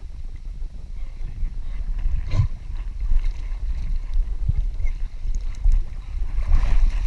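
Water sloshing and splashing against a swimming Dutch Shepherd as it paddles, picked up by a camera strapped to its back as a low, uneven rumble, with a brief splash about two and a half seconds in and more splashing near the end as the dog reaches the bank.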